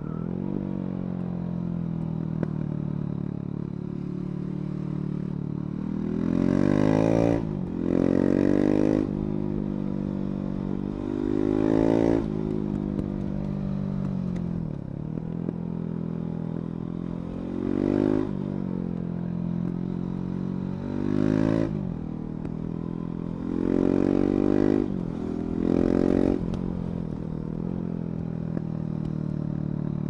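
KTM 690 Duke's single-cylinder engine under way, revving up hard in several bursts, with its pitch climbing through each one. Between bursts the engine winds back down off the throttle. In two of the bursts the pitch briefly drops and climbs again, as at a quick upshift.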